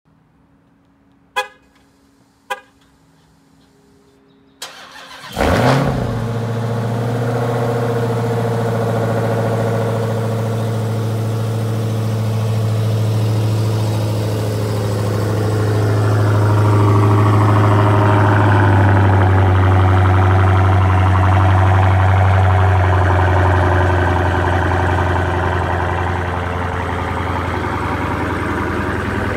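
Two short horn chirps, then a Dodge Charger Hellcat's supercharged 6.2-litre HEMI V8, with no mufflers, cranks and fires about five seconds in with a loud flare and settles into a steady, loud cold-start idle. The idle drops slightly in pitch a little past halfway.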